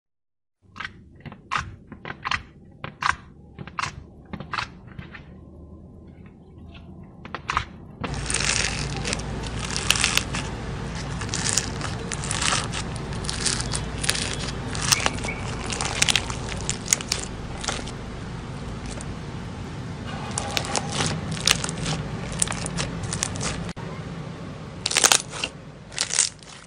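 Slime squeezed and kneaded by hand: scattered sharp clicks and pops at first, then, about eight seconds in, a dense continuous crunching crackle as foam-bead slime is squished.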